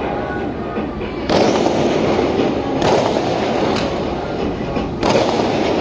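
A long string of Diwali firecrackers (a ladi) going off as a dense, continuous rattle of rapid bangs, with several louder bangs standing out.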